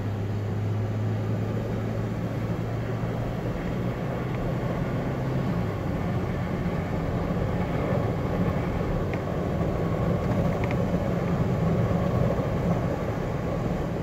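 Four-wheel-drive vehicle driving along a sand beach, heard from inside the cabin: a steady engine drone with tyre and road noise, the engine note changing about six seconds in.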